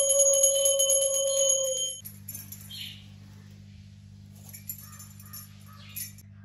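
A conch shell blown in one long held note, with a brass puja hand bell ringing rapidly over it. The note sags in pitch and stops about two seconds in, leaving low room hum and a few faint clinks.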